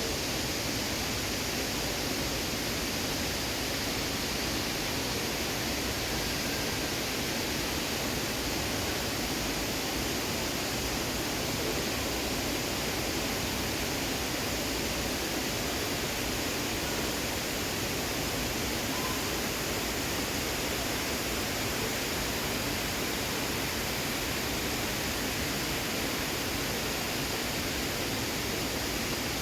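Steady rain falling, an even hiss at a constant level with no single drops or other sounds standing out.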